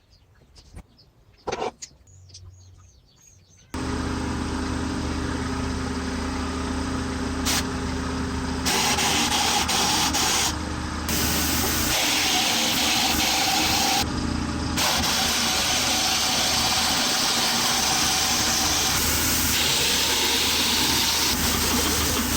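Pneumatic air screwdriver run on compressed air: after a few faint clicks, it starts suddenly about four seconds in and runs steadily with a motor whine and air hiss, the hiss dipping briefly twice.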